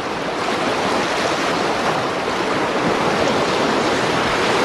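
Ocean wave rushing in: a steady rush of surf that grows slightly louder.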